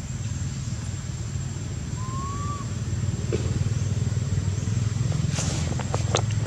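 Steady low rumble like an engine running, with a thin, steady high-pitched whine above it. A short rising whistled note comes about two seconds in, and a few sharp clicks come near the end.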